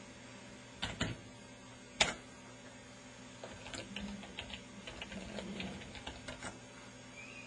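Typing on a computer keyboard: a few sharp clicks about one and two seconds in, then a run of lighter, irregular key taps.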